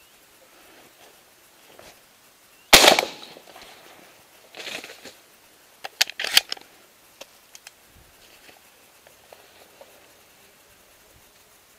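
A single close shotgun shot about three seconds in, its report dying away over about a second. A softer rustle follows, then a quick run of sharp clicks and knocks a few seconds later.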